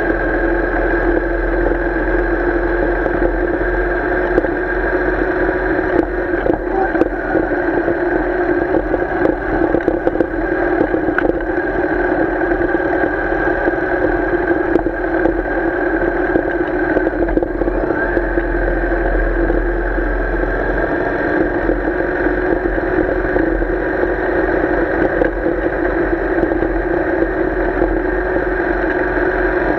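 Royal Enfield Interceptor 650's parallel-twin engine running at a steady cruise of about 3,000 rpm while the motorcycle is ridden, heard close to the bike.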